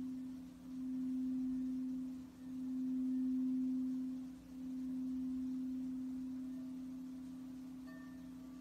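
Crystal singing bowl sung with a mallet rubbed around its rim. It gives one low, steady tone that swells and dips about every two seconds, then slowly fades in the second half, with faint higher overtones coming in near the end.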